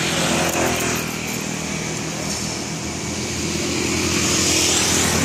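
A small engine running steadily and growing louder about four seconds in.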